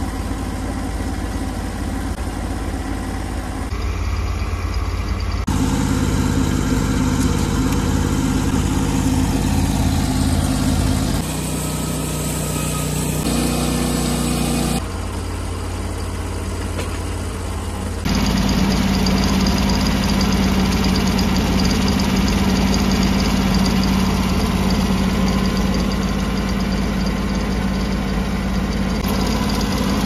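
Engine of a Norwood LumberPro HD36 portable bandsaw mill running steadily, its level and pitch changing abruptly several times.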